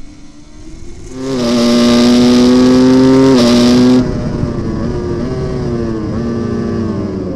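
Racing superbike engine heard from onboard: a Honda Fireblade's four-cylinder engine rises about a second in to a loud, steady high-rev pull, with a brief pitch step like a gear shift. The sound then switches abruptly to a Ducati Panigale V4 R running at high revs through a couple of gear changes.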